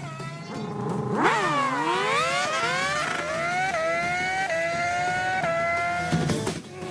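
Motorcycle engine revving hard and accelerating, its pitch dipping and then climbing again several times as it runs up through the gears, before cutting off shortly before the end.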